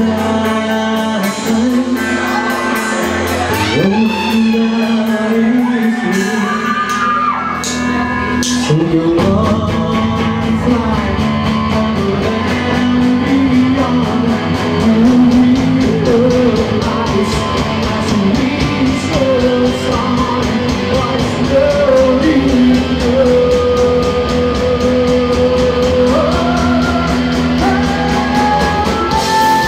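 Rock band playing live: electric guitars, bass and drums, with a lead line that bends up and down in pitch.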